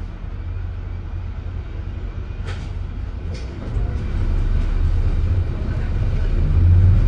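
Leyland Atlantean AN68/1R bus's rear-mounted Leyland O.680 six-cylinder diesel running, heard on board as a steady low drone. Two brief hissing sounds come a little before halfway, and from about halfway the engine note builds louder as the bus pulls harder.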